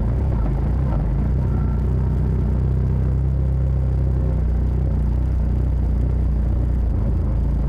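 Side-by-side off-road vehicle's engine running at a steady speed, a low, even rumble.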